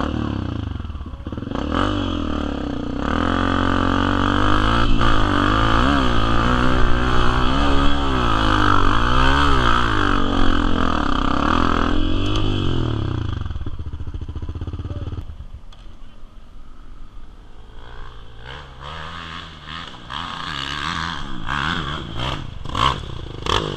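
Motorcycle engine revving up and down, its pitch rising and falling again and again for the first thirteen seconds or so. It then drops to a quieter, lower running with scattered knocks and clatter.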